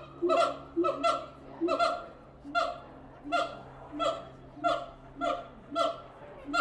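Siamangs calling: a steady series of short hooting notes, one about every two-thirds of a second, each dipping slightly in pitch.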